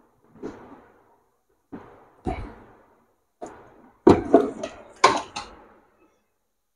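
A string of separate plastic knocks and clatters from the fittings and tubing of a home RO water purifier being handled as its solenoid valve line is pulled off near the pump. A few come singly at first, then a louder cluster about four to five seconds in.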